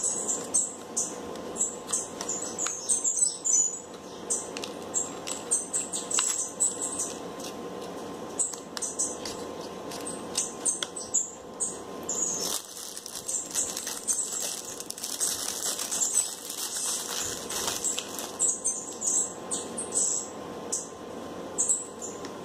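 Small egg-turner motor running with a steady hum, which the owner says keeps turning nonstop instead of giving half a turn every four or five hours. Many quick, irregular high-pitched chirps or squeaks sound over it.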